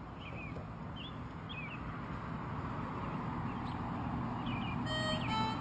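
Small bird chirping again and again while a concertina's reed notes grow steadily louder as it is played coming closer. The notes stand out clearly near the end.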